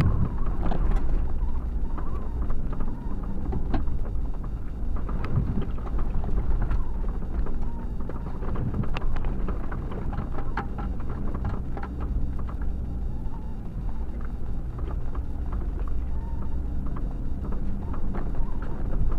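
A vehicle engine runs steadily while driving over beach sand, with wind buffeting the microphone. Frequent small knocks and rattles break in throughout.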